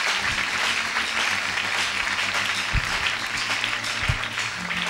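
Church congregation applauding: many people clapping together, steady throughout.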